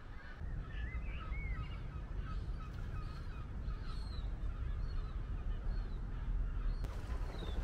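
Waterbirds calling on a lake: many short chirping and honking calls, over a steady low rumble.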